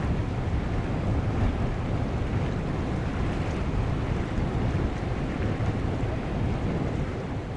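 Wind buffeting the microphone: a steady, gusty low rumble of noise with no distinct engine note.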